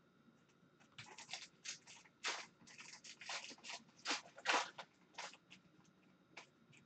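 Foil wrapper of an Upper Deck Tim Hortons Team Canada hockey card pack being torn open and crinkled by hand: a run of short crackling rustles, starting about a second in and dying away near the end.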